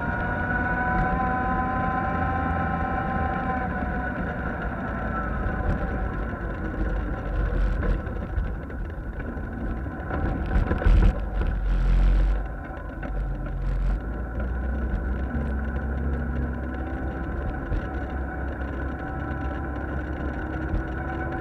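Engine of an off-road vehicle running as it drives along a rough dirt trail, its pitch falling over the first few seconds and rising again in the second half. There is a steady low rumble throughout, and a burst of louder noise comes about halfway through.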